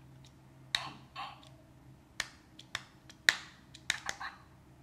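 Fingers tapping a McDonald's Happy Meal Minion talking toy, each sharp tap click followed by a short burst of Minion gibberish from its small speaker. The toy's phrase is one that some listeners hear as swearing. There are about seven taps, three in quick succession near the end.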